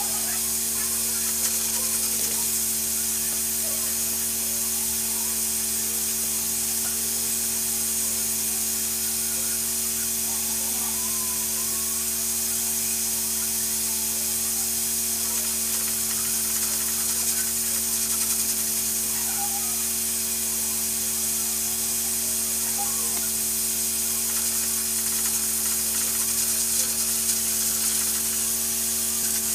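Steady hiss with a low, even hum from a pressure cooker heating on a lit gas burner, with no whistle yet.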